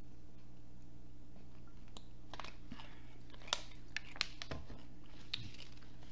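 Close-up mouth sounds and handling of a plastic water bottle just after a drink: a few scattered sharp clicks and short crackles from about two seconds in, over a steady low hum.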